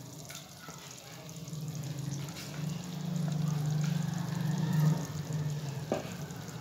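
Mutton pieces sizzling gently in hot oil and masala in a cooking pot, over a steady low hum that grows louder in the middle. A single knock of a spoon against the pot comes near the end.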